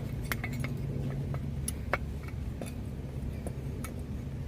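Scattered light metallic clicks and taps as brake pads are worked into place on a car's front brake by hand, over a steady low hum.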